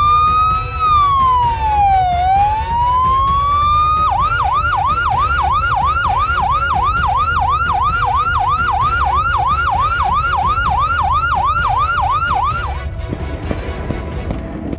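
Ambulance siren: a slow wail rising and falling for the first four seconds, then a fast yelp of about three sweeps a second, over a low rumble. It cuts off about two seconds before the end.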